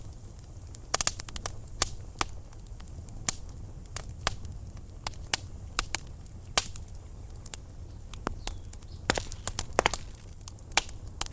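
Sharp clicks and cracks at irregular intervals, a few each second, over a low steady hum.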